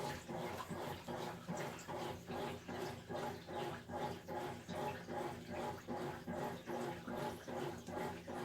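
Amana washing machine running, its motor hum and agitation pulsing in a regular rhythm about two to three times a second, with water swishing in the tub.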